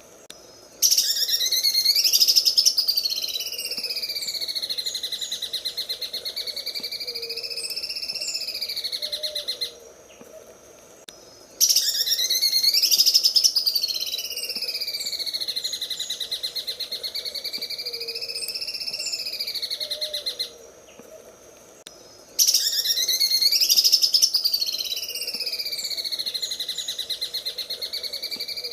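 Cucak ijo (green leafbird) singing a very rapid, rattling trill in the sewing-machine style. It comes in three long phrases of about nine seconds each, separated by short pauses. Each phrase opens with a rising sweep and then wavers up and down in pitch.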